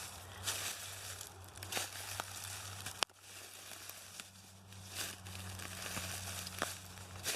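Scattered crackling and rustling over a steady low hum, with one sharp click about three seconds in.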